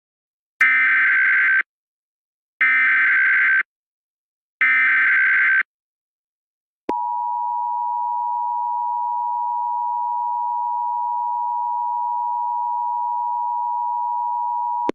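Emergency Alert System header: three one-second bursts of SAME data tones warbling around 1.5–2 kHz, then the EAS two-tone attention signal held steady for about eight seconds.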